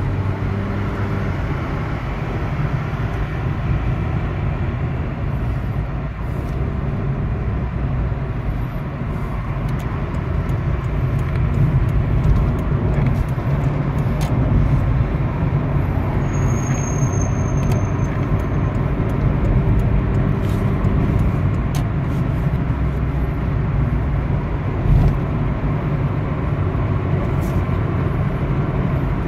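Honda Civic driving, heard from inside the cabin: a steady rumble of engine and tyre noise as the car picks up speed from about 35 to 50 mph, growing a little louder about halfway through.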